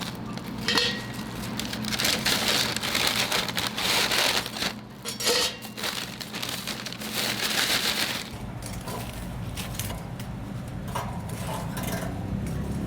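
Crackling and crunching with many small sharp clicks, rising and falling in surges, from fried chicken being prepared.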